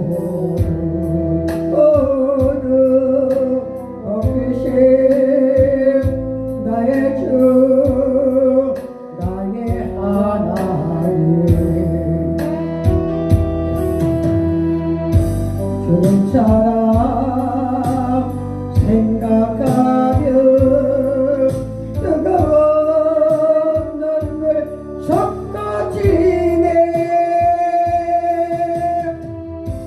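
Korean gospel hymn sung with vibrato over instrumental accompaniment with a steady beat.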